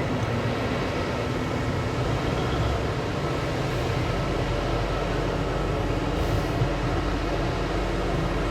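Heavy mining machinery running steadily: a constant low diesel-engine rumble with no clear revving or impacts.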